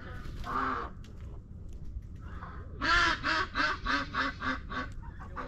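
A black farmyard bird close to the microphone calling: one call about half a second in, then a fast run of about nine loud notes, roughly four a second, starting about three seconds in.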